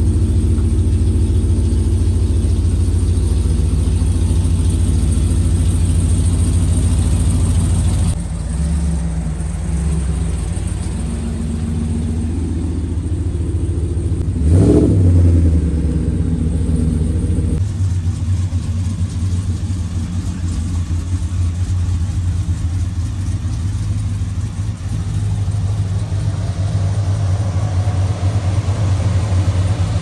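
Ram 1500 pickup's engine running with a steady low drone, briefly revving up and back down about halfway through.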